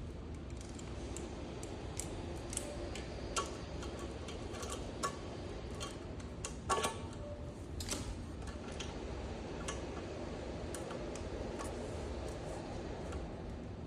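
Irregular small clicks and taps of hand tools and parts being handled while working on an electric skateboard's rear motor, with a steady low hum behind them.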